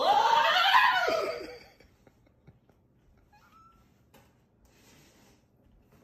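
A drawn-out, wavering high-pitched cry lasting about a second and a half, then only faint small sounds.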